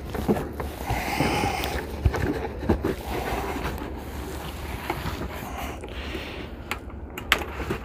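Plastic trim and cargo-area lining being worked loose by hand, with scraping rubs and scattered small clicks and knocks.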